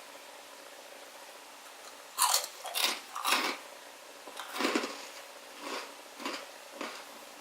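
A run of about seven short crackling, crunching noises from a food-filled plastic Easter egg being opened and its contents tried. The loudest come in quick succession from about two to three and a half seconds in, with fainter ones after.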